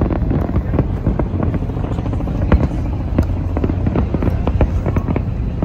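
Aerial fireworks bursting in quick, uneven succession, many overlapping bangs over a continuous low rumble.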